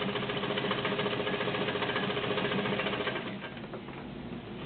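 Vintage White Super Deluxe all-metal zigzag sewing machine running steadily while sewing test stitches after a thread-tension adjustment, then slowing and stopping about three seconds in, leaving a few faint clicks.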